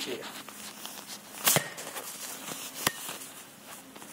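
Rubber super bouncy ball bouncing on a hard store floor: two sharp hits about a second and a half apart.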